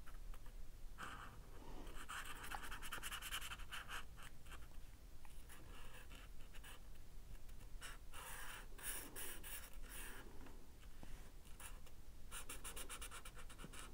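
Sharpie permanent marker tip scratching faintly across paper in runs of quick colouring strokes, with short pauses between runs.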